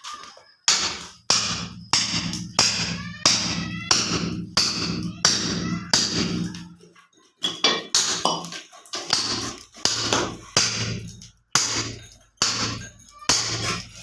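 Background music with a strong, regular beat of about one and a half strokes a second over a sustained bass line that changes pitch about halfway through.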